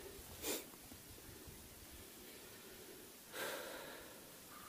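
A man breathing out heavily, twice: a short breath about half a second in and a longer one a little after three seconds.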